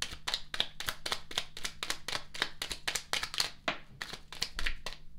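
A deck of tarot cards being shuffled by hand, a quick run of card slaps, about five or six a second.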